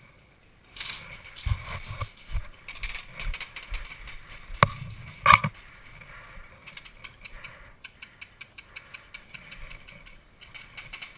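Handling and movement noise from an airsoft player's gear: rustling and clattering with low thuds, and two sharp clicks about halfway through. Then comes a long run of fine, fast mechanical ticks.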